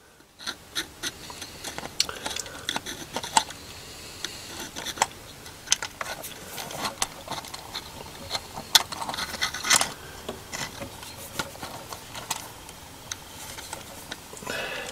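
Irregular small metal clicks and light scraping of fingers fitting the vacuum advance unit's hooked link rod onto the breaker plate inside a Ducellier distributor. The clicks start about half a second in.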